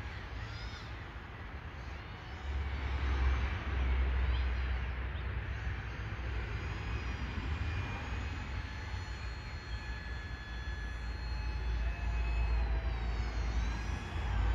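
RC paramotor's motor and propeller whining in flight, the pitch gliding up and down as the throttle changes, over a low rumble.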